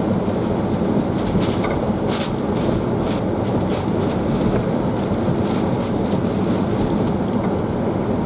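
Hurricane-force wind roaring steadily around an SUV, heard from inside the cabin, with irregular sharp hits striking the vehicle.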